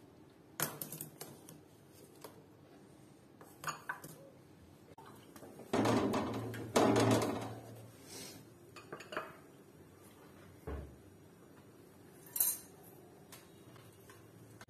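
Kitchenware clatter: scattered knocks and clinks of a plastic spatula working a shawarma flatbread on a flat metal griddle, with a louder, longer clatter about six to seven and a half seconds in.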